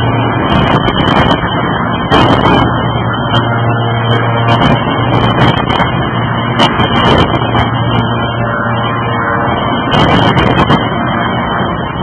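Y13-2500 hydraulic forging press in operation on a hot billet: a loud, steady drone of the hydraulic machinery with a low hum, broken by frequent short clicks and knocks.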